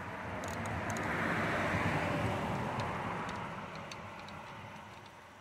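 A broad rushing background noise swells over the first two seconds and fades away. Through it come a few faint ticks from a plug wrench turning a spark plug loose in the lawn tractor's engine head.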